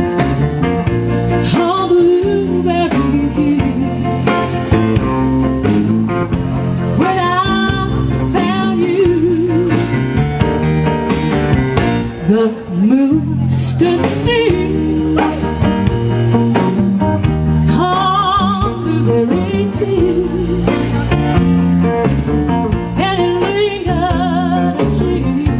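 Live band playing a bluesy song: singing over guitar, bass and drums.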